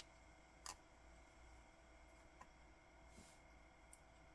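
Near silence with a few faint small clicks, the clearest under a second in, as a spring-bar watch strap is worked into a steel watch case's lugs.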